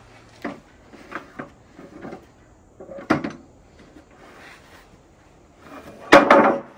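Freshly sawn pine boards being handled on a portable sawmill bed: light wooden knocks and scraping, a sharp knock about three seconds in, and a louder clatter of wood near the end.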